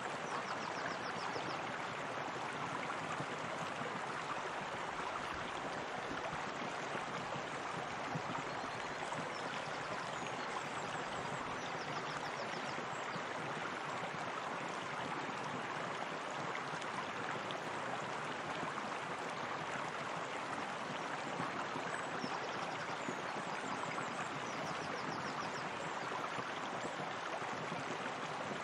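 Steady, unbroken rush of flowing water, like a stream or small waterfall spilling into a pool. A few faint, short, high-pitched trills come and go over it.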